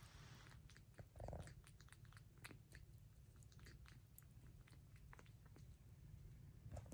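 Faint wet clicks of a squirrel monkey licking and eating Jell-O from a small plastic cup, with one slightly louder short sound about a second in.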